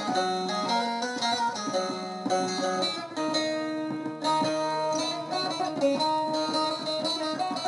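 Instrumental song intro played on plucked string instruments, a steady run of picked notes over held tones.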